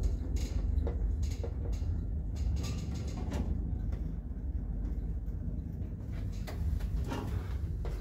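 Passenger lift running in its shaft: a steady low rumble with scattered mechanical clicks and knocks, busiest in the first few seconds and again near the end.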